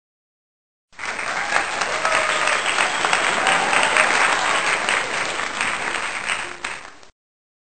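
Crowd applauding, a dense clatter of many hands with a few voices in it. It starts abruptly about a second in and cuts off sharply near the end.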